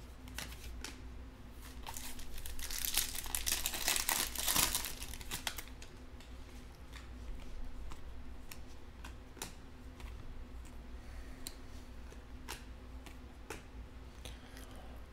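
Trading cards handled and flipped through one at a time, each card sliding off the stack with a small click. A longer crinkling rustle comes about two to five seconds in.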